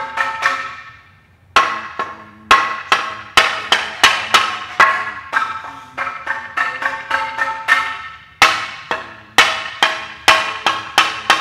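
Ceramic percussion instruments struck with sticks in quick rhythmic phrases, each stroke sharp and ringing briefly at a clear pitch that changes from stroke to stroke. After a short break about a second in, the strokes resume louder.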